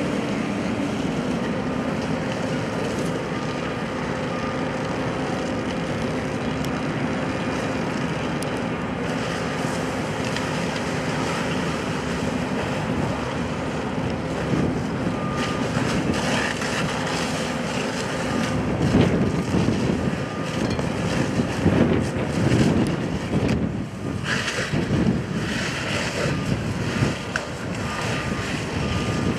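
Fire hose water stream spraying and splashing onto burning garbage, over the steady drone of a running truck engine. About halfway through, the spray becomes louder and more uneven.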